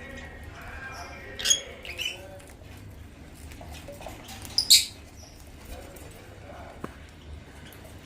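African lovebirds giving a few short, shrill chirps: two close together about a second and a half in, and a louder one just under five seconds in.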